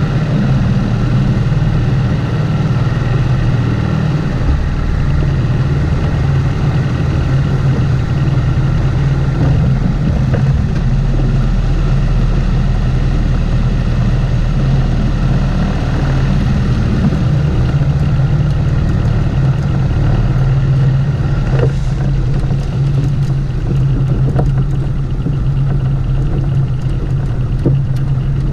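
Outboard motor running steadily under way, pushing a small skiff across the water with a constant engine drone.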